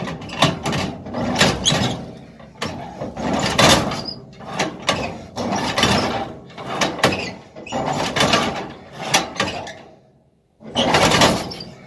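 A 1951 Ford side-valve four-cylinder engine being turned over by hand with the starting handle, with a bit of choke on: a rhythmic swishing pulse about once a second as each swing of the handle turns it over. It stops briefly near the end, then comes again.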